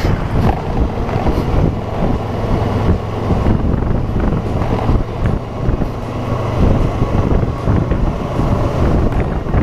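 Kawasaki Versys 650's parallel-twin engine running while the motorcycle is ridden, mixed with heavy wind noise on the camera microphone.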